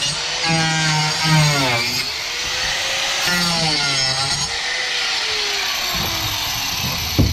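Power saw cutting through rotten transom wood: a loud motor whine whose pitch repeatedly dips and climbs back as the blade bites. It stops suddenly at the end.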